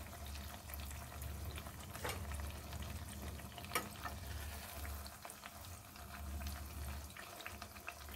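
Semolina pua shallow-frying in hot oil: a faint, steady sizzle with scattered small pops and crackles. A spatula clicks against the pan once, about four seconds in, over a low steady hum.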